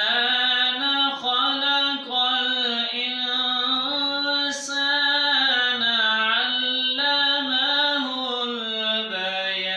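A man reciting the Quran aloud in a melodic chanted style, holding long notes with slow pitch ornaments and brief breaks between phrases. A sharp hissing consonant comes about halfway through, and the pitch dips lower near the end.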